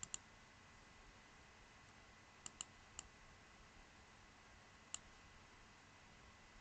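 Computer mouse clicks over faint room hiss: a quick double click at the start, another pair about two and a half seconds in, one more at three seconds and a single click near five seconds.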